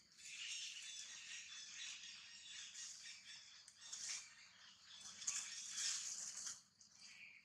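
Faint outdoor ambience of chirping birds and insects, with a few louder stretches of high chirping around the middle.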